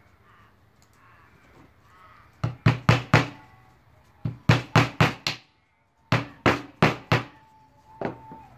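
A hammer driving a nail into a board: three quick runs of four or five blows each, then a single lighter blow near the end.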